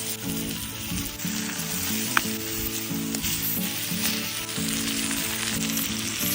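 Meat sizzling steadily on a hot stone slab, with a sharp pop about two seconds in. Background music with held low notes plays underneath.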